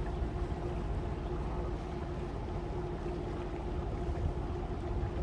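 A river boat's engine running steadily, heard on board: a constant low rumble with a steady hum over it.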